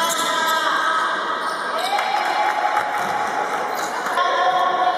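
Basketball game in a gym: a ball bouncing on the wooden court under crowd and player hubbub, with two long, drawn-out shouts, one in the middle and one near the end.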